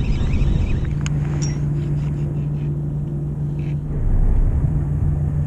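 Fishing boat's engine running with a steady low hum, and a couple of faint clicks about a second in.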